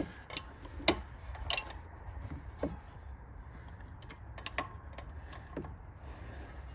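Irregular metal clicks and light knocks of hand tools, a fan clutch wrench and ratchet, being handled and fitted against the engine's fan and water pump pulley, over a faint steady low hum.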